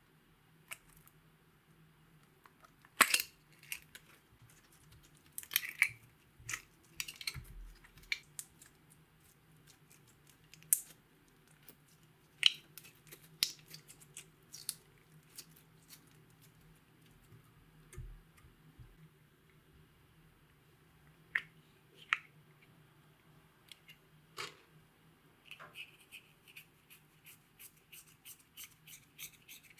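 Sharp plastic clicks and taps, scattered irregularly, as plastic slime containers and lids are handled over a glass dish. Near the end a quick run of small ticks and scrapes as green powder eyeshadow is scraped out of its compact.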